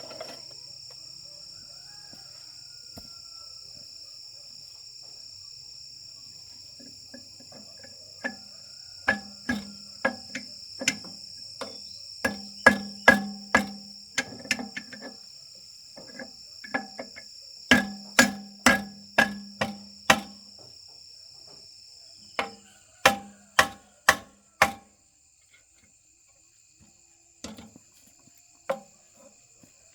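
Hammer blows on metal, struck in quick runs of several blows from about a quarter of the way in; each strike rings briefly. Under them is a steady high insect buzz that stops about three quarters of the way through.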